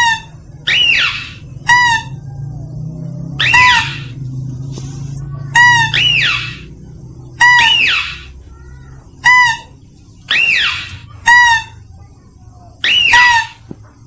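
Mouse-deer lure call: high squealing calls repeated about every one to two seconds, alternating a rising-then-falling glide with a short, harsher note.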